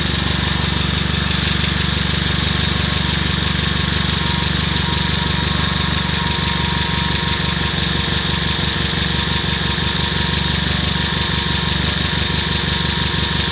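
Mitsubishi forklift's spark-ignition engine, freshly rebuilt with about 20 running hours on it, idling steadily.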